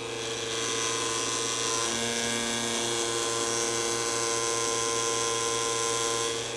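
Electric pump of a Shoo-fly automatic insecticide misting system running steadily under pressure, a hum of several steady tones with a hiss over it, getting a little louder about half a second in. The needle valve is being opened, bleeding the pressure back from 200 psi toward 160–170 psi.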